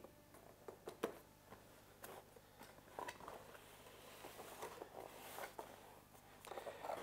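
Faint cardboard handling as a camera box is opened: a few light taps and clicks, then rustling and scraping as the sleeve slides off and the flaps are folded open, a little louder near the end.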